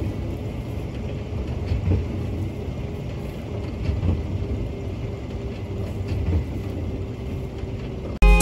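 Fendt 942 tractor and Krone HDP II big square baler working: a steady low engine hum with a faint tone through it and occasional short knocks.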